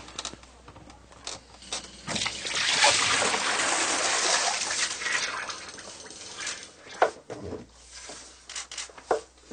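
Seawater jetting in through a broken log-transducer through-hull fitting. It sprays and splashes loudly against a hand and a soft cone plug for about four seconds, starting about two seconds in, then dies away as the plug seals the hole. A couple of sharp knocks follow near the end.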